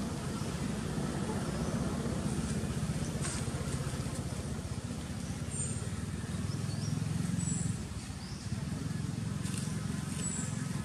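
Steady deep outdoor rumble, with a few faint, short high-pitched chirps above it.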